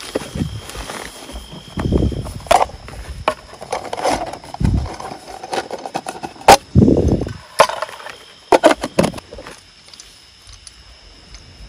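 Irregular knocks, clicks and clatters close to the microphone, with low thumps between them, like gear being handled. The sounds are busiest for the first nine seconds or so and then die away. A faint steady high tone runs underneath.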